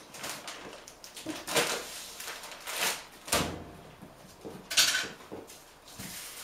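Golden retriever puppies eating kibble from a shared metal bowl on a tile floor: irregular clinks and clatters of bowl and food, the loudest about three quarters of the way through.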